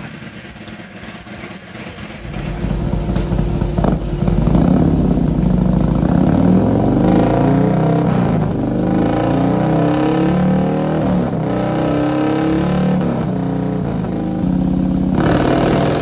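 Harley-Davidson Milwaukee-Eight V-twin built to 135 cubic inches (MHP 135 Devil Runner kit) with a Thunderheader exhaust, running on a dyno. After a quieter first couple of seconds it revs hard, its pitch climbing in several rising sweeps and dropping back between them.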